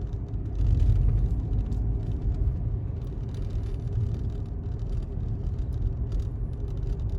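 Car driving along a road, a steady low rumble of engine and tyres heard from inside the cabin, swelling slightly about a second in.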